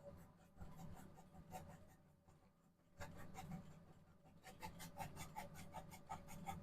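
Faint paintbrush strokes of acrylic paint on canvas: quick, short scratchy strokes that come faster and stronger in the second half.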